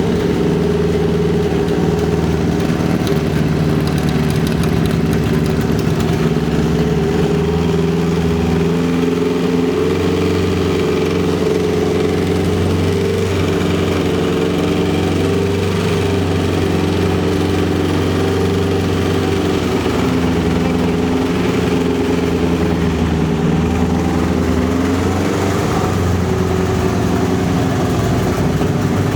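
Subaru EJ208 flat-four engine running steadily, its note holding nearly even with only slight shifts in pitch, while it is listened to for knocking.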